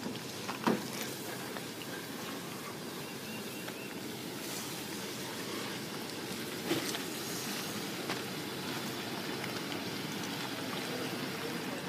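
Steady background hiss with a few short knocks or scuffs, the loudest about a second in.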